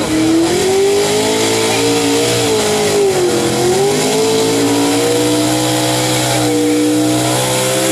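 Pickup truck's engine at full throttle pulling a weight-transfer sled. The revs climb steadily, sag briefly about three and a half seconds in, then climb back and hold high.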